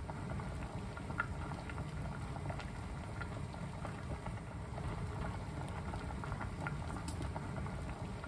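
Water and vegetable chunks boiling hard in a stainless steel stockpot, a steady rolling boil with many small bubbling pops and a low rumble.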